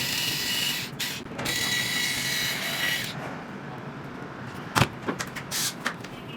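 A small handheld tool runs in spurts, a steady whine over a hiss, as old waterproof adhesive is cleaned from the iPhone's screen frame; it stops after about three seconds. A sharp click comes near the end, followed by a few lighter clicks.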